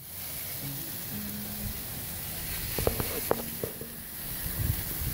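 Chicken wings sizzling on a gas grill, a steady hiss with a few light clicks about three seconds in.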